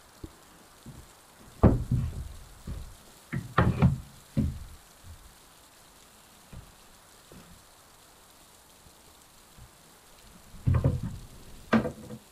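Dull wooden knocks and thumps as the wooden peg rack is handled: a loud one under two seconds in, a quick cluster a couple of seconds later, and two more near the end.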